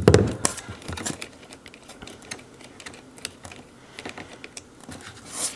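A sharp clunk as pliers are set down on the boat's metal deck plate, then scattered light clicks and rattles of crimped wire connectors and a terminal nut being worked off a marine battery post by hand.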